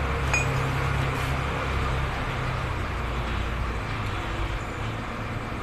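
Steady low rumble of vehicle engines, with one light metallic click about a third of a second in.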